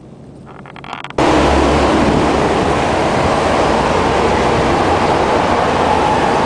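Quiet outdoor ambience cuts abruptly, about a second in, to a loud, steady rush of wind and traffic noise.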